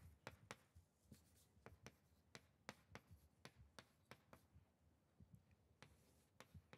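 Faint chalk tapping and scratching on a blackboard as symbols are written: irregular short strokes, a few a second.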